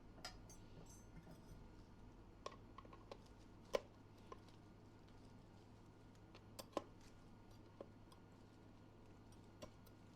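Near silence with a low steady hum, broken by a dozen or so sparse, faint clicks and taps of appliance packaging being handled; the two loudest come about four and about seven seconds in.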